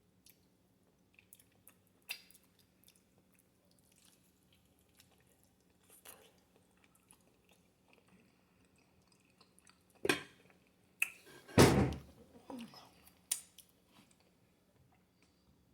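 Close-up chewing with scattered small mouth clicks and smacks. A louder cluster of knocks comes late, including one heavy thump. A faint steady hum runs underneath.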